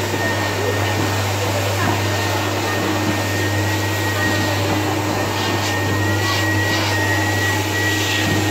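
Build-A-Bear stuffing machine's blower running steadily while the foot pedal is held down, blowing fluffy stuffing through the nozzle into a plush toy. It makes an even rush of air with a faint hum.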